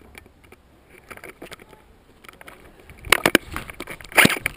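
Faint steps on a debris-strewn concrete floor, then a quick run of sharp cracks about three seconds in and a louder cluster near the end: airsoft shots fired at close range inside the building.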